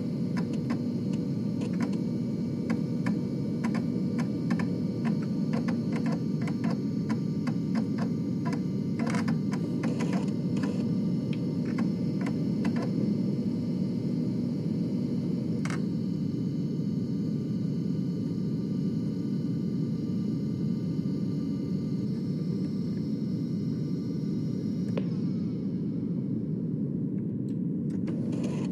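Floppy disk drive at work: a steady whirring run with rapid clicking and ticking over it for the first dozen seconds or so, then a single click about sixteen seconds in, after which the drive runs on steadily without clicks.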